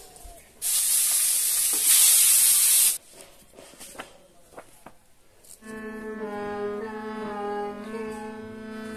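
A loud rushing noise lasting about two seconds near the start, then a few faint clicks. From about halfway a harmonium plays: a steady low drone under a slowly moving melody.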